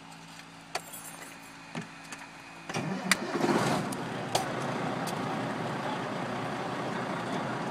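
Semi truck's diesel engine cranking and catching about three seconds in, then idling steadily. Before it starts there is only a faint steady hum with two light clicks.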